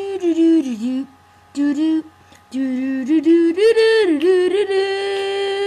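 A single high voice singing without accompaniment: long held notes with a wavering vibrato and pitch dips, broken by two short pauses early on.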